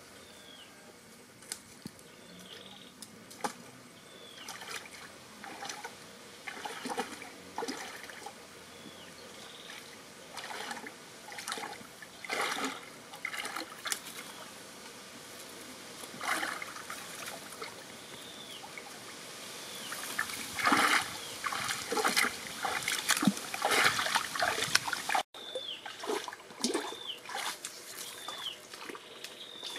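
Shallow stream water splashing and sloshing as a person wades and works a woven bamboo fish trap through it, in irregular bursts that grow busier and louder in the second half. A short high chirp repeats every second or two.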